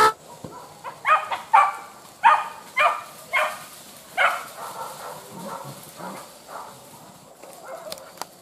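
Hunting dogs barking: about six sharp barks in the first four seconds or so, then fainter barking.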